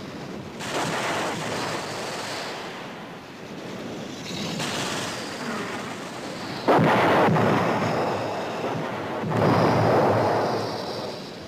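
War-film battle sound effects: rumbling blast noise, with a sudden loud blast about two-thirds of the way in and another loud swell near the end.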